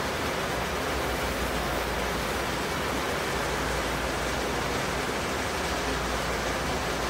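Steady rushing air noise of an indoor shooting range's ventilation, with a low hum underneath.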